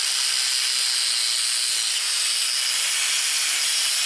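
Bosch angle grinder with an abrasive cut-off wheel cutting through 3/8-inch steel flat bar: a steady, high, hissing grind of the disc in the metal.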